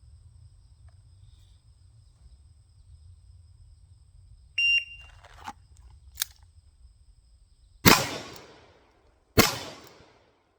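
Shot timer beeps once, then a couple of light clicks, then two shots from a Ruger New Model Blackhawk single-action revolver about a second and a half apart, each with a short ringing tail.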